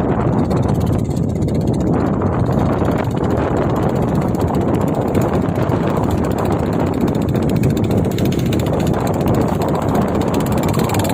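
Speedboat engine running steadily under way: a loud, even noise with no breaks or changes in pitch.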